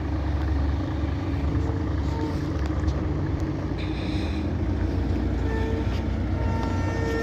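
Heavy vehicle engine running with a steady low rumble, with a brief hiss about four seconds in. A horn sounds in short blasts several times in the last two seconds.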